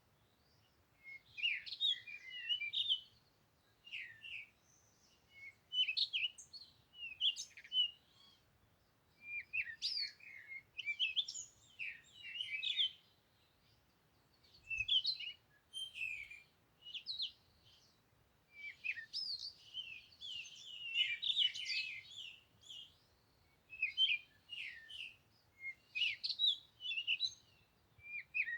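Songbirds chirping and twittering in short, quick phrases that come in clusters every second or two, several calls at times overlapping.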